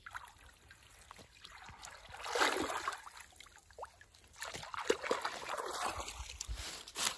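Water sloshing and splashing around a person wading in shallow water and working his hands through it, in a few swells.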